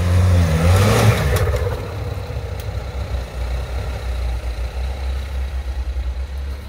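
Jeep Wrangler's engine revving as it climbs a sandy rut off-road, loudest about a second in, then running on at low revs in a steady, pulsing rumble.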